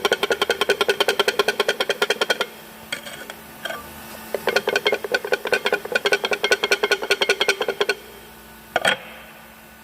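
Worn dual-mass flywheel on an Audi Q5 rattling: a fast, even metallic clatter in two stretches of a few seconds each, with a single knock near the end.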